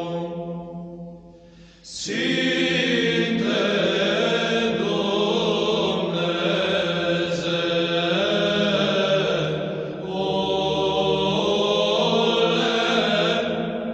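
Eastern Orthodox church chant sung by low men's voices over a steady held drone note. One phrase dies away in the first two seconds and a new one begins, with a brief dip about ten seconds in.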